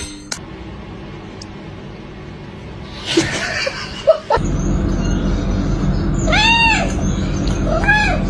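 A cat meowing twice, two short meows that rise and fall in pitch, in the second half, over a steady low noise that starts about four seconds in.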